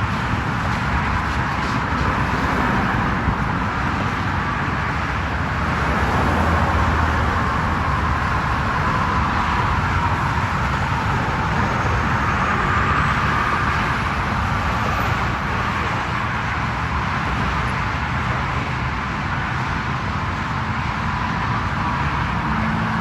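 Steady roadside traffic noise: road vehicles running, swelling a little now and then.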